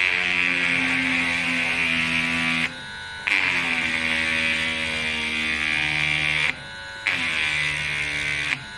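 Mini cordless rotary tool drilling a hole: a steady motor whine with a grinding hiss from the bit. It runs in three stretches, stopping briefly about two and a half seconds in and again about six and a half seconds in.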